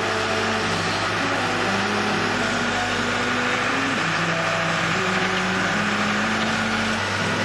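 Backhoe engine running as its bucket digs, with background music playing a simple stepping melody over it.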